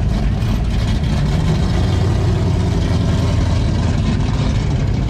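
A motor vehicle's engine running steadily with a low rumble.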